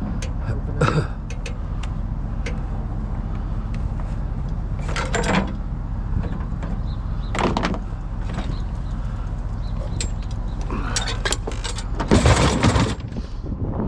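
Vehicle engine idling steadily, with several sudden loud clatters and bangs over it, the loudest near the end.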